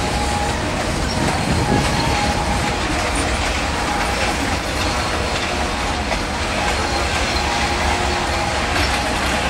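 Reading & Northern freight train hopper cars rolling past, their steel wheels rumbling steadily on the rails.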